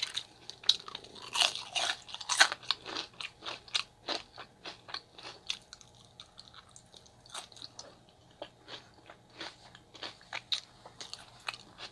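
Close-miked mouth sounds of biting and chewing fries and a chicken gyro wrap: irregular crunchy clicks, louder and busier in the first few seconds, softer in the middle.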